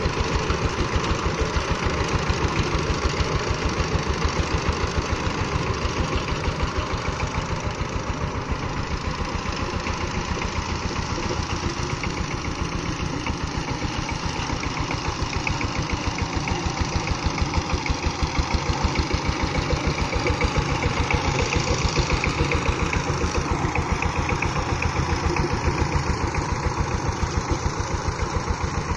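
A two-wheel power tiller's single-cylinder diesel engine runs steadily with an even, rapid chugging while its rotary tines churn the soil.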